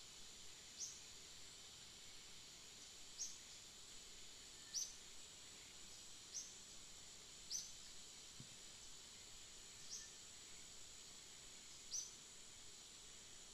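Steady high insect drone in the forest, with a short high chirp, probably a bird's call, repeating about seven times, every one to two seconds.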